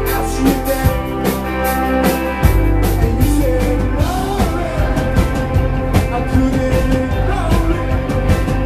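Live rock band playing: a male singer over electric guitars, drums, bass and keyboard, with a steady drum beat.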